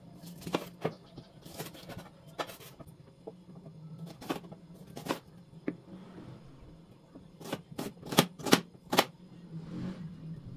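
Chef's knife slicing an onion, its blade knocking on a cutting board in irregular chops, with a quick run of loud strikes toward the end.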